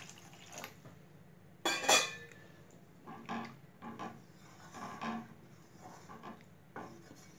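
A metal spoon clattering and scraping against a cooking pot while stirring curry, with one louder clatter about two seconds in, then lighter strokes roughly once a second.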